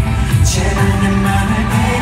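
Loud K-pop song played live through the stadium sound system, with singing over heavy bass and a short falling electronic sweep about half a second in.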